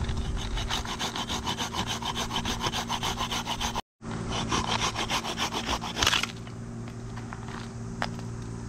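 Folding hand saw cutting a stick of firewood in quick back-and-forth rasping strokes. The sawing breaks off for a moment near four seconds, resumes, and stops about six seconds in with one louder, sharper stroke.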